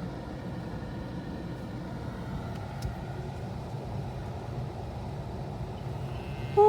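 Toyota car's engine running with a steady low rumble. A cow begins a long moo just before the end.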